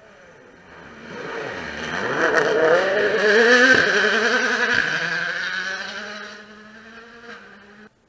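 A 2017 World Rally Car, with a 1.6-litre turbocharged four-cylinder engine, at full speed on a gravel stage. It approaches, passes closest and loudest three to four seconds in with two sharp cracks, then pulls away with its engine pitch falling. The sound cuts off abruptly just before the end.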